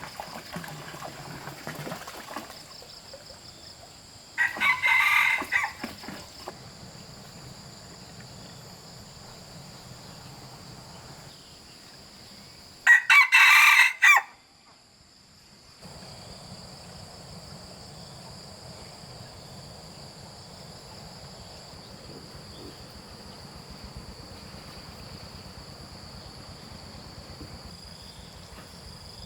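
A rooster crows twice, about four seconds in and again about thirteen seconds in, the second crow louder.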